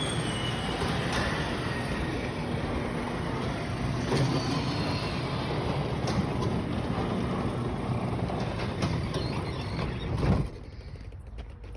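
Garage door travelling on its tracks: a steady mechanical rumble with roller noise, which then stops abruptly about ten and a half seconds in.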